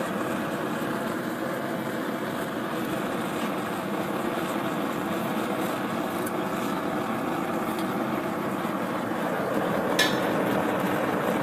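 Homemade propane forge burner, a 3/4-inch pipe burner, running steadily: a constant rushing noise of the gas flame firing into the forge. One short, sharp click about ten seconds in.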